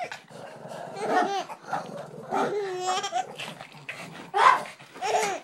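Dogs barking in short outbursts and a baby laughing hard at the barking, the loudest outburst about four and a half seconds in.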